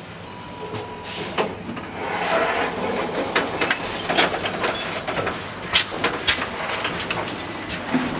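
Automatic sliding doors opening about two seconds in with a brief squeal, letting in street noise; then a run of sharp clicks and shuffles as a group of people steps out over a hard floor.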